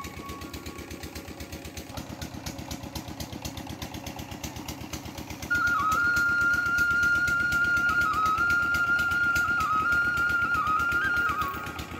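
Small motorcycle engine idling with a rapid, even putter. About five seconds in, a louder wavering flute-like melody of background music comes in over it.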